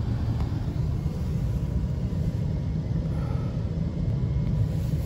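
Mercedes-McLaren SLR's supercharged V8 idling at a crawl, heard from inside the cabin as a steady low rumble.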